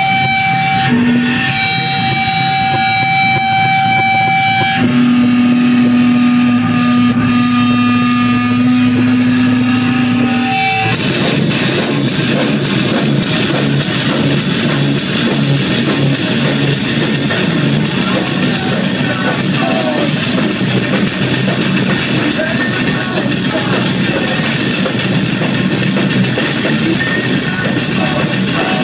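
Live heavy rock band: electric guitars hold long sustained notes that shift pitch twice, then about ten seconds in the full band comes in loud with distorted guitars, bass and drums.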